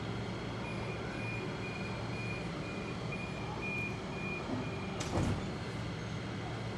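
Door warning beeps on a Sydney Trains Oscar H-set standing at the platform: a steady series of high beeps, about two a second, for about four seconds, signalling the doors are about to close. A short sharp knock follows about five seconds in.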